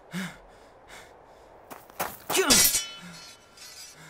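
A sharp crash with a short falling cry from a man about two and a half seconds in, the loudest moment, after a brief low grunt just after the start.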